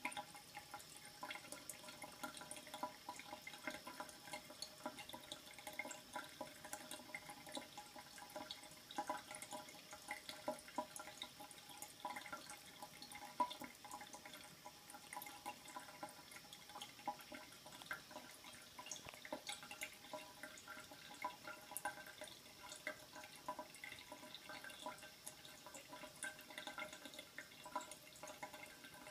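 Thin stream of water running from a bathroom faucet and splashing into a sink, with a dense, irregular patter of small drips and splashes.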